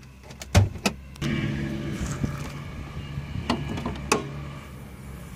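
2013 Ford Taurus hood being opened: a sharp click as the interior hood release lever is pulled, then more clicks as the hood's safety catch is worked and the hood is lifted, over a steady low hum.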